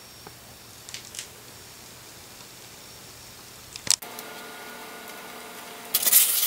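Faint steady room hum with a couple of small clicks, then a sharp click about four seconds in, after which a steady hum with several held tones runs on; near the end comes a loud, scratchy crackling rub as a styrofoam block is handled and set against a tripod head.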